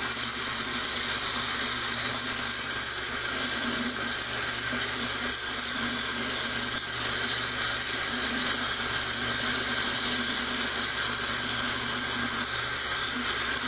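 Bathroom sink tap running steadily, the stream splashing over a glass and hands held under it as the glass is rinsed.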